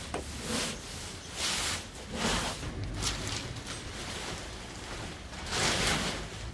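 Fabric car cover rustling and swishing in a series of pulls as it is dragged off a car, the loudest swish near the end.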